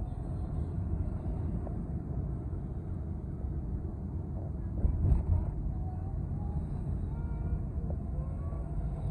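Steady low rumble of a car's engine and tyres heard from inside the moving car's cabin, with a louder bump about five seconds in.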